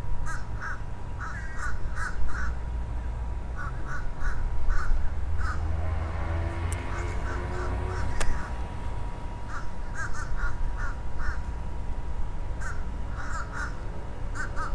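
Crows cawing over and over in quick runs of short calls, over a low steady rumble.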